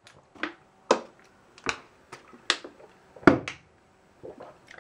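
A series of about a dozen irregular sharp clicks and taps, with a heavier knock a little over three seconds in.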